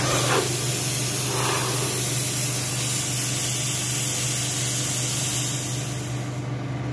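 A loud, steady hiss that starts suddenly and cuts off near the end, over a steady low hum.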